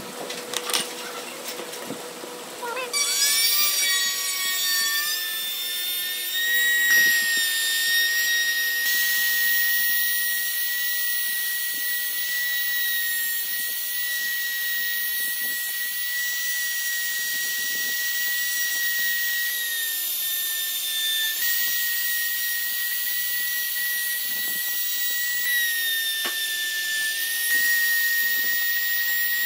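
A few light knocks, then a handheld trim router starts about three seconds in, its pitch rising as it spins up. It settles into a steady high whine while the bit cuts a groove along a wooden board.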